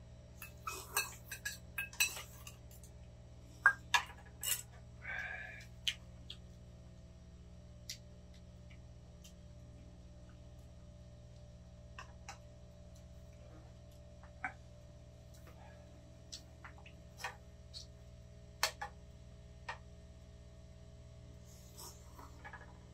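Chopsticks and spoons clinking and tapping against metal pans and bowls during a meal: scattered sharp clicks, busiest in the first six seconds and sparser after, over a steady low hum.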